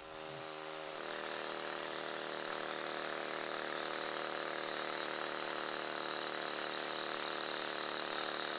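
A motor or small engine running steadily at a constant pitch, building up over the first second.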